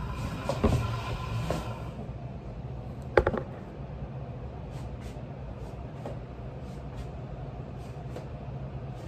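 Handling and clothing rustle close to the microphone, then a single sharp knock about three seconds in, over a steady low hum.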